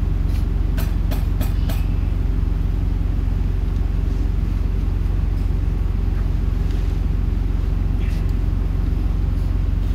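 A loud, steady low drone of running machinery fills the shop. In the first two seconds there is a quick run of about five sharp metallic clicks as an alignment clamp is worked onto the truck's wheel rim.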